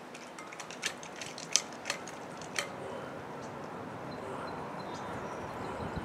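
Strong wind blowing, a steady rushing that slowly grows louder, with a handful of sharp clicks in the first few seconds.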